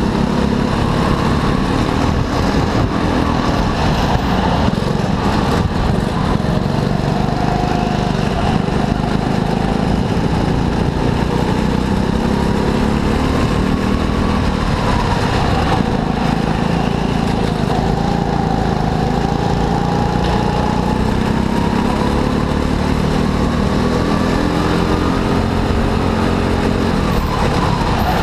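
Go-kart engine running continuously under load, its pitch rising and falling slowly as it speeds up and slows down around the track.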